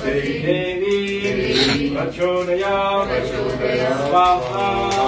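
Male voice chanting Hindu mantras to a sung melody, the phrases rising and falling without pause.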